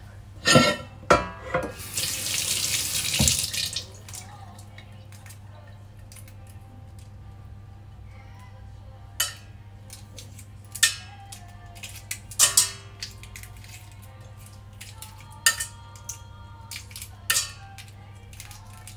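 A kitchen tap runs for about a second and a half near the start. Scattered clinks and knocks of dishes and utensils follow, over a steady low hum.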